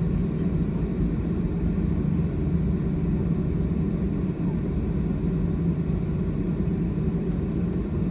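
Cabin noise of a jet airliner taxiing on the ground after landing: a steady low rumble.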